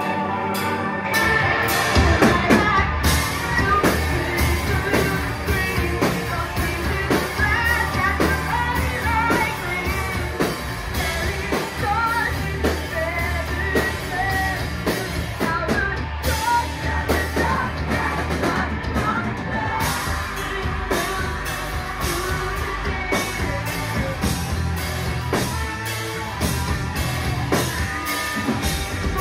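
A live rock band playing loud electric guitars, bass and drums, with singing. A held guitar chord opens, and the drums and full band come in about a second in.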